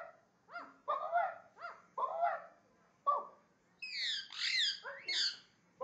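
Indian ringneck parakeet giving about six short, rough calls, its imitation of a dog barking, then three high-pitched screeches near the end.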